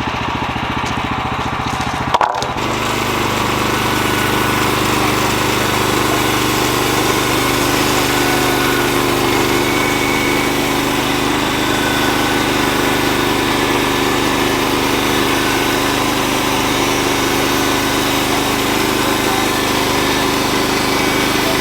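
Sawmill's small gasoline engine running steadily, with a brief click about two seconds in.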